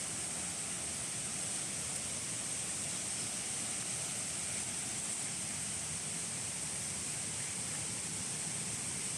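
Waterfall rushing steadily, an even noise with no breaks, topped by a constant high-pitched hiss.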